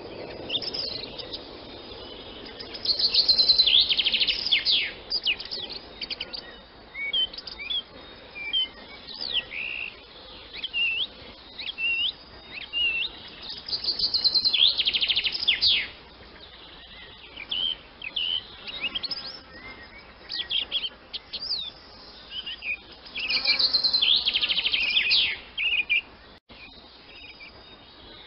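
Swallows twittering: a string of short, quick chirps with three louder spells of rapid trilling, a few seconds in, around the middle, and near the end.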